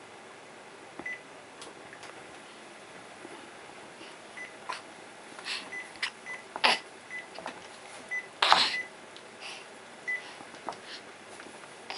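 Cordless phone handset beeping as its keypad is pressed: a dozen or so short beeps, all at one pitch, at uneven intervals. A few sharp knocks are mixed in, the loudest about eight and a half seconds in.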